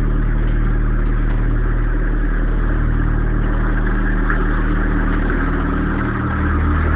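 Steady low engine drone, like a running vehicle engine.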